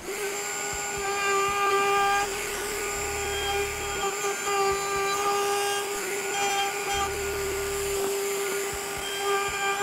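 Table-mounted router spinning a 5/16-inch roundover bit with a steady high whine, the cutting noise swelling and easing as the edges of small wooden pieces are fed past the bit.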